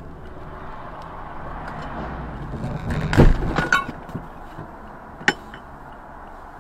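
Steady road noise inside a car driving on a highway, with a burst of loud knocks and clinks about three seconds in and a single sharp click a couple of seconds later.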